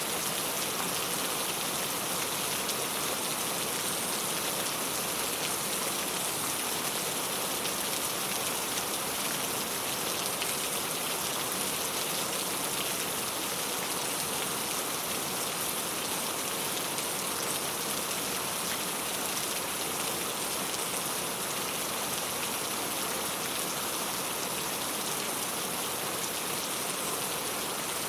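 Steady rain on a clay-tile roof: an even, unbroken patter of drops.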